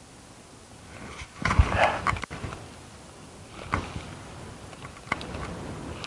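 Close rustling and crunching from someone moving about near the microphone. It is loudest about a second and a half to two seconds in, and a few sharp clicks follow later.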